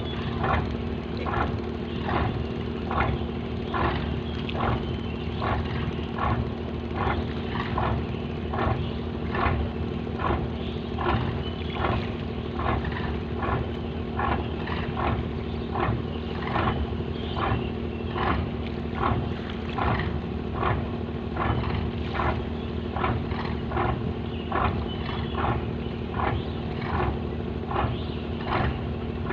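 A fishing boat's engine running steadily, with a regular knocking beat about three times every two seconds over a constant drone.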